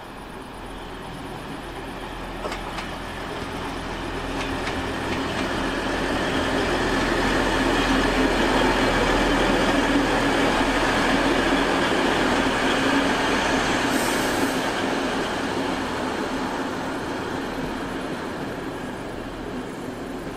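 DB class 612 diesel multiple unit passing, its underfloor diesel engines droning and its wheels running on the rails, swelling to a peak in the middle and fading away. A few clicks early on and a short high hiss about two-thirds through.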